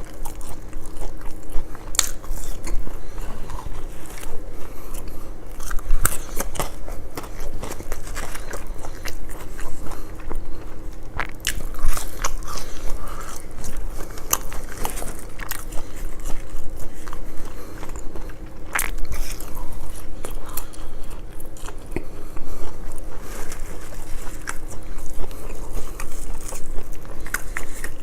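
Close-miked eating of fried fish and fries: biting, crunching and chewing in irregular, sharp crackles with no regular rhythm.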